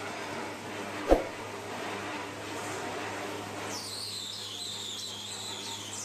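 Workshop lathe humming steadily, with a single loud clank about a second in as a large aluminium pot is fitted onto it. From a little past halfway, a high wavering screech as the hand-held cutting tool bites into the spinning pot and throws off shavings.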